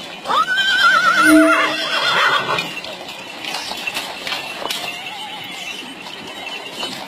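A horse whinnies loudly about a second in: one long neigh that rises and then holds a wavering pitch. Around it come the irregular hoofbeats of several horses walking on gravel, with a fainter short whinny near the middle.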